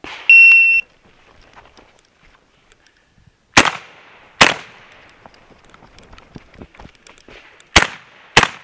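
A shot timer gives one steady electronic beep about half a second long: the start signal for the stage. It is followed by four shots from a semi-automatic 12-gauge shotgun, fired as two quick pairs about four seconds apart.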